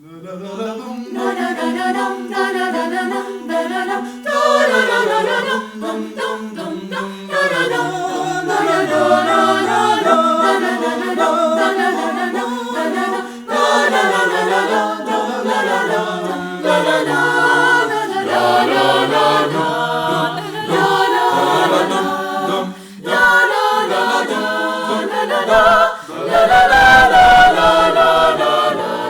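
A choir singing a cappella in several voice parts, entering together out of silence and holding long notes that move in pitch.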